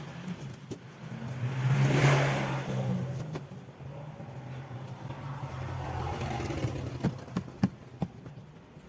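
A motor engine over a steady low hum, swelling to a peak about two seconds in and then fading. A few sharp knocks sound near the end.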